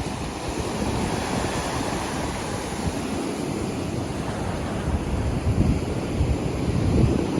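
Pacific Ocean surf washing onto the beach, a steady rushing noise with wind buffeting the microphone. It swells louder and rumbles more near the end.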